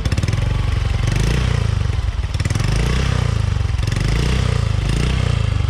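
Motorcycle engine idling steadily through an aftermarket Exos X6 exhaust pipe, with a low, even pulsing beat.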